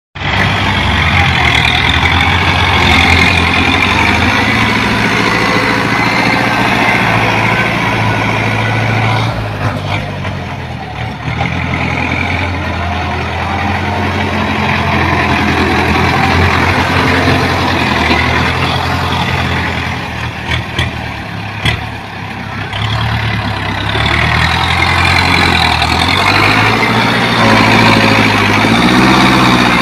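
Ford 6600 tractor's three-cylinder diesel engine running under load as the tractor drives and pushes soil with a front dozer blade. The engine note rises and falls near the end.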